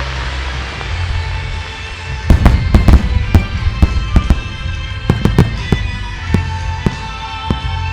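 Fireworks shells bursting in a rapid string of loud, sharp bangs, starting about two seconds in and thinning out toward the end. Music plays underneath on the show's loudspeakers.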